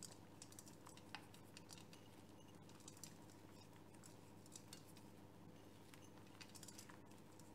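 Near silence: room tone with a faint steady hum and a few faint small clicks scattered through it.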